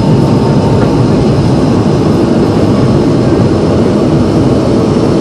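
Loud, steady roar inside the cabin of a McDonnell Douglas MD-87 rolling out on the runway after landing. Its rear-mounted Pratt & Whitney JT8D jet engines and the runway rumble both carry through.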